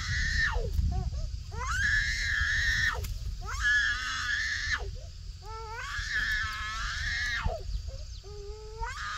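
A young child crying in a string of high wails, each about a second or more long, rising at the start and dropping off at the end, with short breaks between them.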